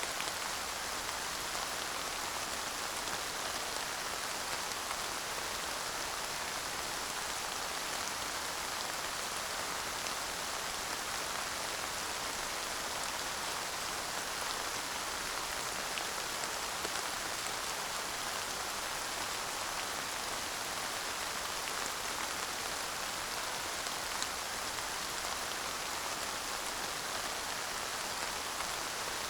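Steady rain falling on a surface: an even hiss with scattered individual drop ticks and no thunder.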